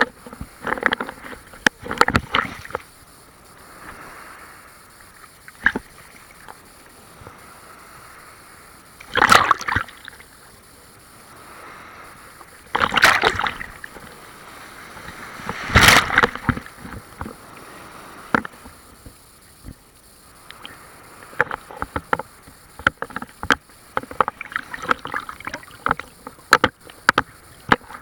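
Big waves of the Sea of Azov washing and splashing, with three louder surges in the middle and a dense crackle of small splashes at the start and through the last several seconds.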